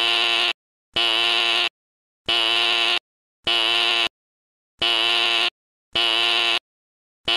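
Fire alarm sounding: a loud buzz in even pulses of under a second each, about one a second.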